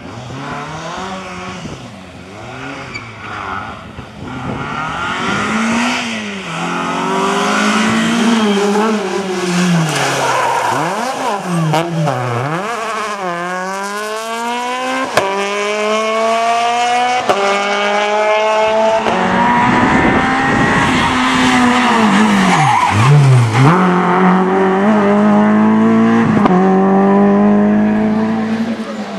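Rally car engines revving hard as they drive the stage. The pitch climbs steeply and drops back at each gear change, with sharp cracks at the shifts.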